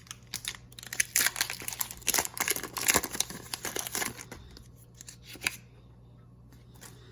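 Foil wrapper of a Pokémon trading card booster pack being torn open and crinkled: a run of sharp crinkling rustles that dies down a little over halfway through.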